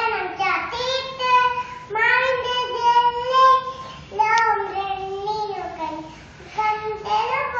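A young girl singing solo with no accompaniment, in short phrases with long held notes.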